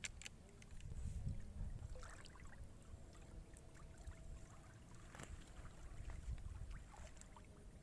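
Faint outdoor ambience by the water: an uneven low rumble with scattered small clicks and ticks.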